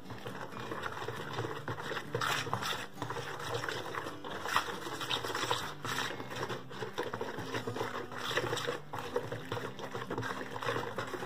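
A stand mixer's wire whisk, worked by hand, beats cornmeal into a runny corn batter in a plastic bowl. It makes a continuous run of wet, sloshing, scraping strokes.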